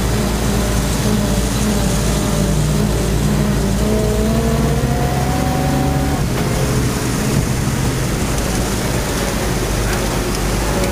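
A military truck's engine running while the vehicle rolls across grass, heard from the cab. A whine climbs in pitch about four seconds in and drops away about six seconds in.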